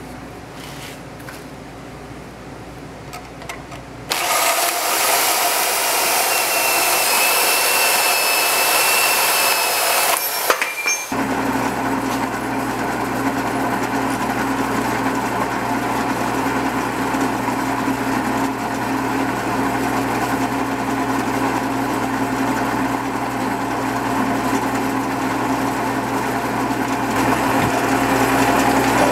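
Drill press running, its bit cutting into a stainless steel flat bar clamped in a cross-slide vise: a steady motor hum with the sound of drilling. Before it, a loud hissing power tool runs for about six seconds and stops suddenly.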